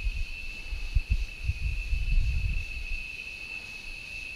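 Insects trilling: one steady, high-pitched tone that never lets up. Low, uneven rumbling on the microphone underneath it dies away about two and a half seconds in.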